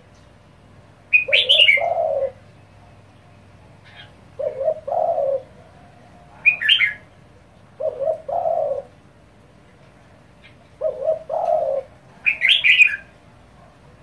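Spotted dove cooing: a short two-part coo, about a second long, repeated four times at intervals of about three seconds. High, brief chirps break in three times between the coos.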